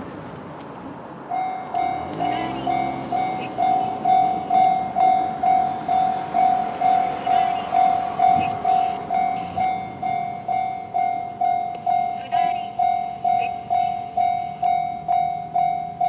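Japanese level-crossing alarm in the JR standard sound, a single electronic bell tone repeating a bit more than twice a second. It starts about a second in and warns of an approaching train as the barrier arms lower. A car passes close by as the alarm begins.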